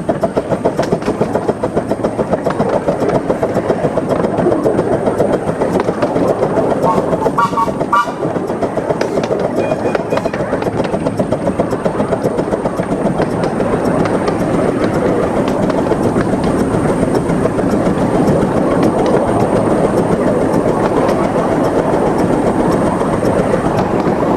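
A 15-inch-gauge Krupp 4-6-2 Pacific steam locomotive running under way, heard from the footplate. It gives a steady run of rapid, regular exhaust beats over the clatter of the wheels on the rails.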